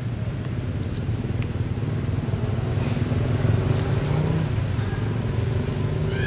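A motor vehicle's engine runs steadily and grows louder toward the middle, like a motorbike passing. Faint short high squeaks from a newborn monkey come in the second half, with a clearer cry starting at the very end.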